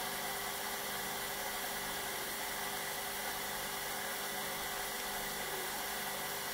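Electric motor of a wet stone-cutting saw running steadily with no stone in the cut: an even hum and hiss.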